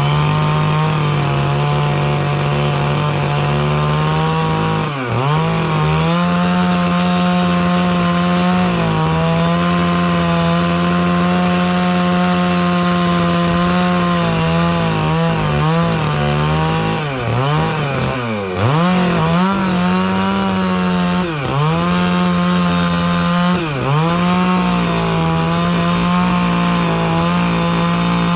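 Stihl 660 two-stroke chainsaw with a 36-inch bar running at high revs while rip-cutting a dry larch log along the grain. The engine note sags briefly and recovers several times, most deeply around five seconds in, at nine seconds, and between about seventeen and nineteen seconds, as the chain bites into the wood under load.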